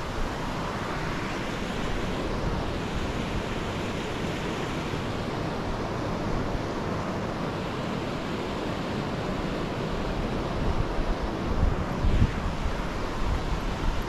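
Steady wash of the Virgin River flowing over its rocky bed below a footbridge. Wind buffets the microphone in gusts near the end.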